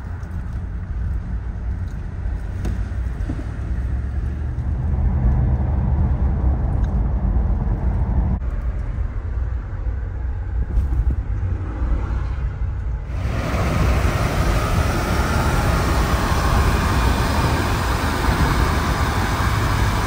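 Car on the move: a steady low engine and road rumble. About 13 seconds in, a loud rushing hiss joins it and holds.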